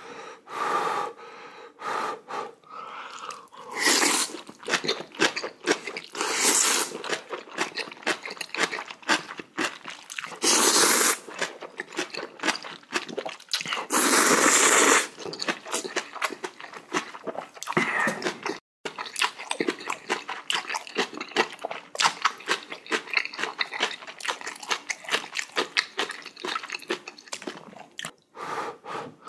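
Close-miked eating of spicy jjamppong noodle soup and kimchi: steady crunching and chewing with wet mouth clicks, broken by several loud noodle slurps about a second long.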